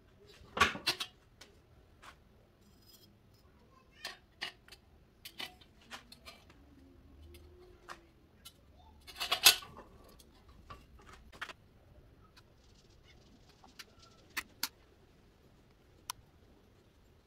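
Scattered sharp clicks and light knocks from handling a metal workpiece in a bench vise, loudest about a second in and again about halfway through.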